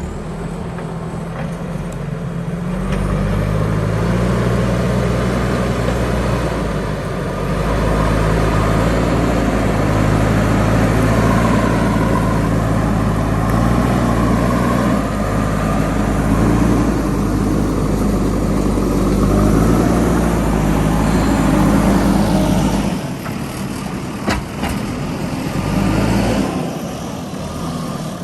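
JCB backhoe loader's diesel engine running under load, rising in revs about three seconds in and dropping back to a lower idle near the end. A couple of sharp knocks sound just after it drops back.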